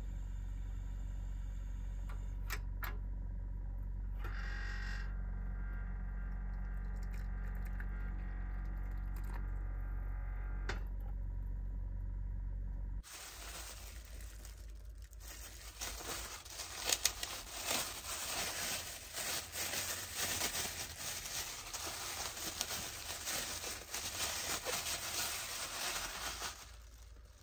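Cassette gas stove burner running steadily under an aluminium kettle, a low rumble with faint tones from the heating kettle. About halfway it gives way to a thin plastic bread bag crinkling and rustling as a loaf is pulled out of it.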